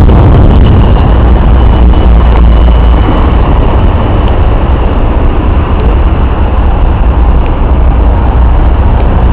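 Loud, steady low rumble of outdoor city noise, traffic-like. A faint high whine sits over it for the first few seconds.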